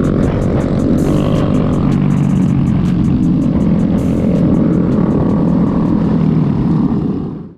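Motorcycle engine running during a ride, a steady dense rumble with wind rush, cutting off abruptly near the end.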